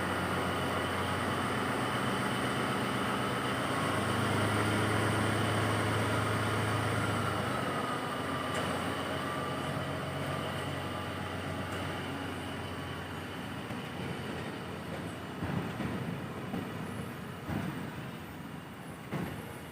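INKA CC300 diesel-hydraulic locomotive's engine running with a steady drone that grows louder about four seconds in, then fades off after about seven seconds. A few sharp knocks come in the last few seconds as the train rolls on.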